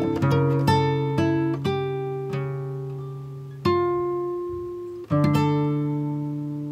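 Background music: a slow plucked-string melody, its notes ringing and fading away, with two louder struck chords about halfway through and again near the end.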